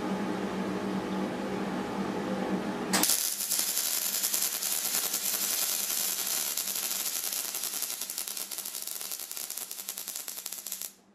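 MIG welding arc crackling steadily while a bead is laid along a lap joint on steel plate. The arc starts suddenly about three seconds in; before that there is only a steady hum.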